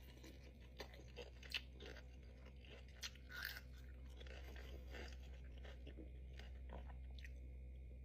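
Faint chewing and crunching of a pickle stuffed with Takis and Gushers, with a few sharper crunches in the first few seconds, over a steady low hum.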